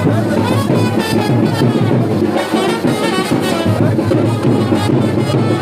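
Music with a steady beat and a melody over it.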